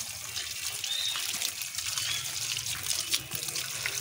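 Tap water running and splashing onto a concrete floor as hands rinse cut wedges of raw jackfruit under the stream, washing off the sticky sap.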